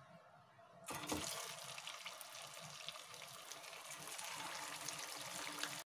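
Poha kachoris dropped into hot cooking oil, sizzling and crackling as they deep-fry. The sizzle starts suddenly about a second in and cuts off abruptly just before the end.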